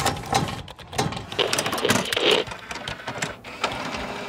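Logo-reveal sound effects: rapid mechanical clicking and ticking mixed with swelling whooshes.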